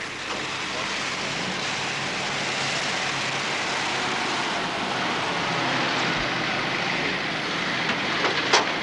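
A first-generation Ford Econoline van driving up and pulling to a stop, its engine and road noise steady and swelling slightly, with a short sharp click near the end.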